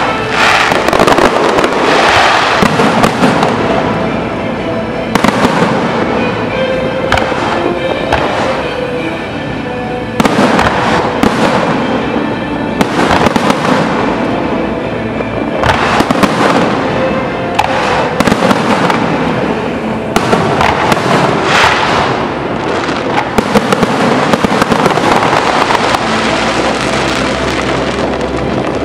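Fireworks display: aerial shells bursting and crackling in volleys every couple of seconds.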